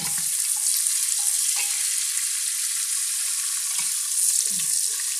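Sliced onions sizzling steadily in hot oil in an aluminium pressure cooker, just added and being stirred with a wooden spatula, with a few soft knocks of the spatula against the pot.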